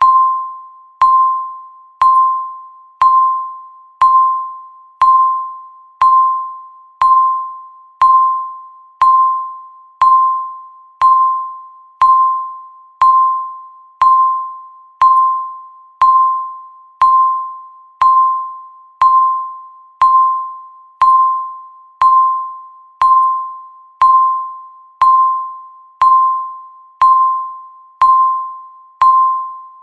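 Countdown timer's tick sound: a short electronic chime near 1 kHz struck once a second, each one ringing out and fading before the next, marking each second of the countdown.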